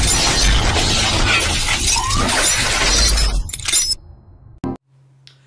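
Loud intro-animation sound effect: a dense crashing noise over a deep rumble, which cuts off about three and a half seconds in. A brief click follows, then a low steady hum.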